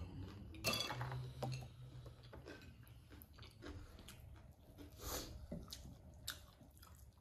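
Close-up eating sounds: chewing and biting as rice, pork curry and fried cauliflower pakoras are eaten by hand, with scattered small wet smacks and clicks, the sharpest about a second in and again around five seconds.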